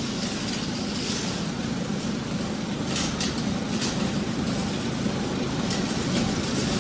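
Claw machine's gantry motors running steadily as the claw travels and works, with a few faint clicks. The whole claw is shaking as it moves.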